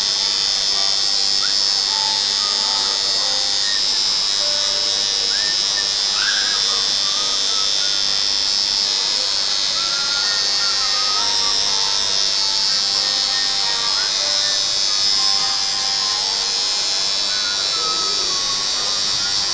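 Tattoo machine buzzing steadily while the needle works into the skin of a forearm. Faint music and voices run underneath.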